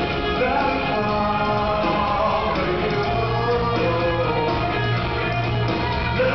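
Live rock band playing, with guitars under a male lead singer.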